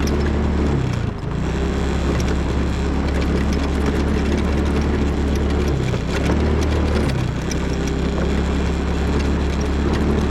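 The motor of a small vehicle being ridden, running steadily, its pitch dipping briefly a few times as the speed changes, with scattered rattles and clicks over the top.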